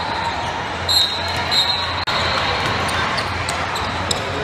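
Basketball game court sounds in a large hall: a steady din of spectators and play, with the ball bouncing on the hardwood floor and sneakers squeaking sharply twice, about one and one and a half seconds in.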